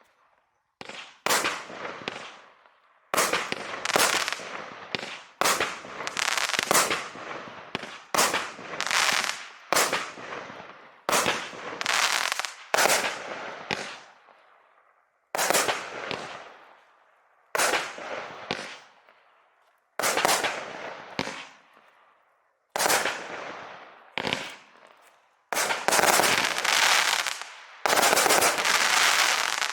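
Consumer fireworks battery (a 0.8–1 inch calibre multi-shot cake) firing shot after shot. Each sharp bang is followed by a fading tail, one to two seconds apart, and the shots come thick and overlapping near the end.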